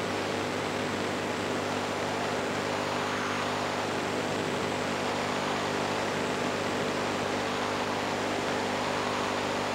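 Steady hiss with a low, even hum beneath it, unchanging throughout: the noisy sound channel of a weak amateur television signal carrying no programme audio while its caption card is on screen.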